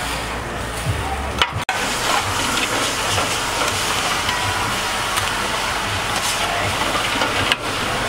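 Meat sizzling on a hot grill, a steady dense hiss broken by short dropouts about a second and a half in and near the end.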